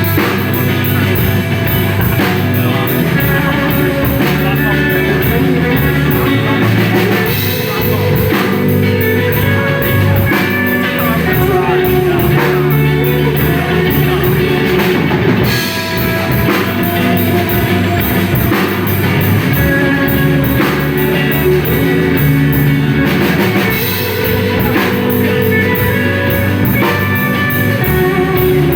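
Live rock band playing: a drum kit keeping a steady beat under two electric guitars and a bass guitar.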